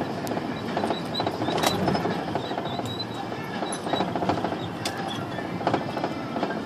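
Cabin noise inside a moving Ford shuttle van on a rough ride: steady engine and road noise, with scattered rattles and knocks from the van's body and fittings.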